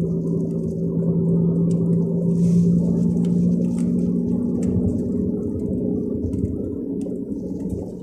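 The 360 hp MAN diesel engine of a MAN Lion's Regio coach heard from on board, running with a steady drone that eases off a little in the second half.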